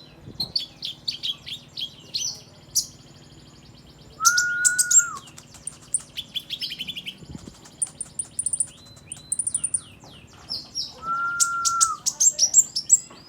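Olive-backed sunbird calling: rapid series of high, sharp chirps and twitters in short bursts. Twice a long, level whistle is held for about a second, once about four seconds in and again near the end.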